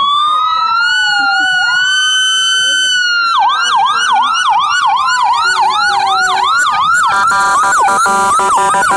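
Fire truck siren: a slow wail rising and falling for about three seconds, then switching to a fast yelp of about three sweeps a second. About seven seconds in, a steady blaring tone joins it as the truck draws close.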